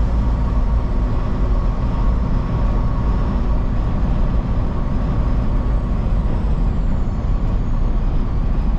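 Semi-truck driving at highway speed: a steady drone of engine and tyre noise with a heavy low rumble.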